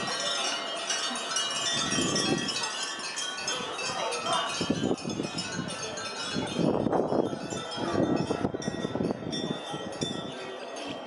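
Many small temple bells tinkling in the wind, a dense jangle of overlapping high ringing tones, with a few louder, lower bursts of sound in the background.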